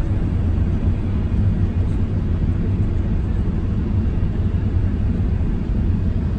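Steady low rumble of an airliner's cabin noise in flight, the engines and rushing air heard from inside the cabin.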